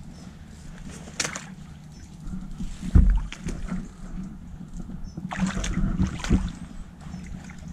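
Water sloshing and splashing around a person wading waist-deep, over low wind noise on the microphone, with a single sharp knock about three seconds in.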